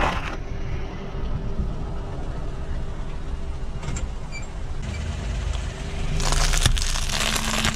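Car idling with a steady low engine rumble, the crunch of dry instant-noodle blocks under its tyre cutting off right at the start. About six seconds in, a louder crackling noise comes in.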